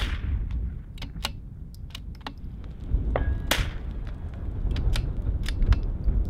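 .22LR rifle shots with Lapua match ammunition: one at the very start and a louder one about three and a half seconds in, each with a short echo. Several fainter clicks and taps fall between them, with a brief beep just before the second shot, all over steady wind buffeting the microphone.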